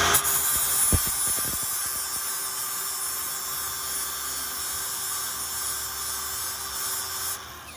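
Angle grinder grinding down a steel weld bead: a steady hiss of the wheel on metal over the motor's whine, louder at first and easing as the pressure comes off, stopping shortly before the end.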